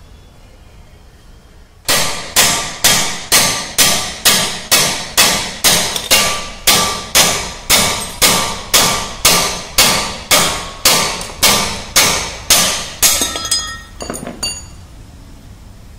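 Hammer blows on a steel bar driving the heated old rubber bush out of the Hyundai Verna's rear dead axle beam, about two blows a second with a ringing metal clang on each. They start about two seconds in and stop with a couple of lighter knocks near the end, as the bush comes free.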